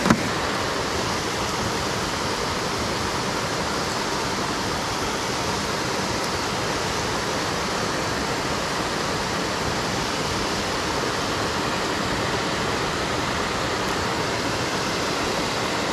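Steady rush of water pouring down a concrete dam wall and splashing into the pool below.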